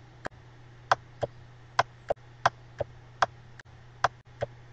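Laptop touchpad buttons clicking repeatedly, a sharp click about twice a second at an uneven pace, over a faint steady low hum.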